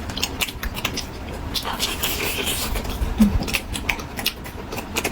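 A person eating: chewing and quick light clicks, as of chopsticks against a bowl, in an irregular patter.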